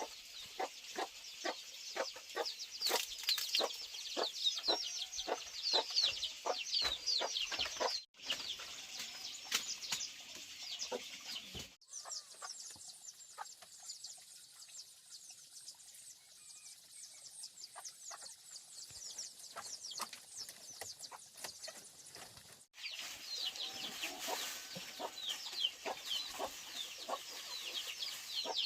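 Chickens clucking, with many rapid, short high-pitched calls and scattered small clicks. The sound changes abruptly three times, at edits, around 8, 12 and 23 seconds in.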